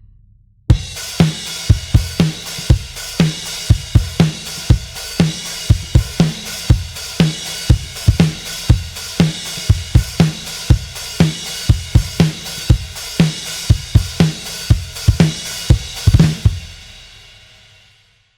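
Sampled drum kit from the EZdrummer 3 Custom Shop EZX library playing a steady groove of kick, snare, hi-hat and cymbals. It starts under a second in after a brief gap and ends near the close with a final hit that rings out over about two seconds.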